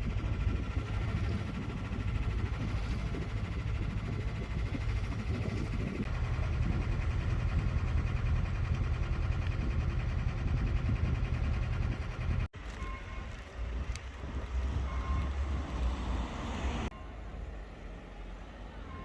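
Sailboat's inboard engine running steadily under way, a low hum with wash and wind noise. About twelve seconds in it cuts off abruptly to a quieter outdoor background with a few short faint tones.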